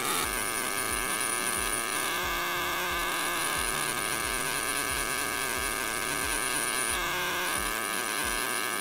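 Hammer-type diamond polishing handpiece buzzing steadily as its tip hammers a textured finish into a gold bangle, under background music with a steady beat.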